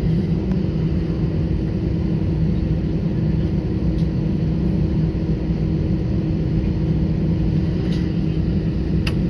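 Steady cabin rumble with a low, even hum inside an airliner on the ground before takeoff: engines and air-conditioning running. A couple of faint clicks come near the end.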